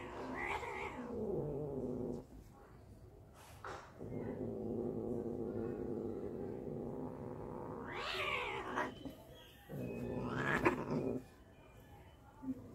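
Tabby cats squabbling with cat vocalizations: a falling yowl at the start, a long low growl lasting several seconds, then two sharper yowls near the end.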